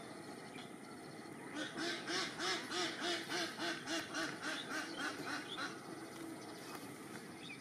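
An animal calling a fast run of about twenty pitched notes, some five a second. The calls start about a second and a half in and fade away before the end.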